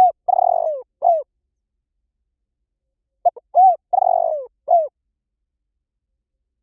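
Spotted dove cooing: two calls about three seconds apart, each a couple of short coos, a longer rolling coo that falls in pitch, and a final short coo.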